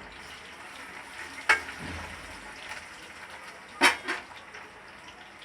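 Hot oil sizzling in a kadai as green chillies, dried red chillies and garlic fry for a tempering, with a spoon clinking against the pan twice, about a second and a half in and again near four seconds.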